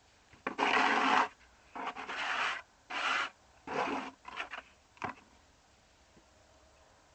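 Four rasping scraping strokes in quick succession, each about half a second long, followed by a few lighter scrapes and a sharp click about five seconds in.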